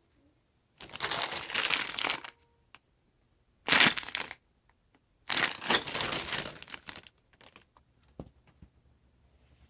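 Small metal parts jingling and rattling in three bursts, the first and last about a second and a half long and the middle one shorter, followed by a few faint clicks.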